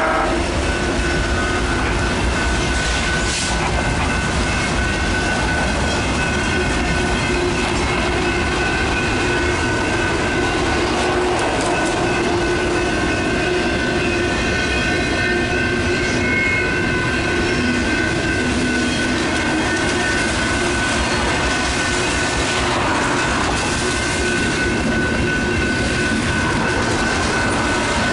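Double-stack intermodal freight cars rolling through a grade crossing: a steady rumble and clatter of wheels on rail, with the crossing's electronic bells ringing steadily over it. A train horn cuts off just as it begins.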